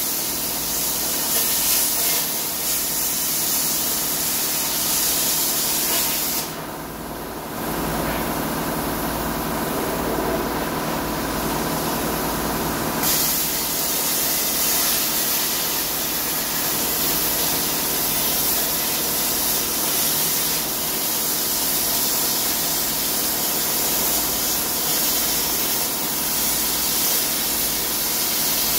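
Eastwood Versa Cut 60 amp plasma cutter cutting through a steel truck frame horn: a steady, loud hiss of air and arc. The hiss thins out for several seconds about a quarter of the way in, then returns.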